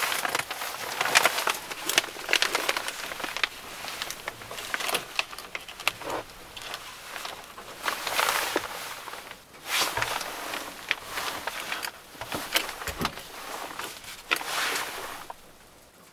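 Rustling and crinkling of quilted, foil-backed window shades being handled and pressed into place on a van's windows, in irregular bursts with small clicks and knocks among them.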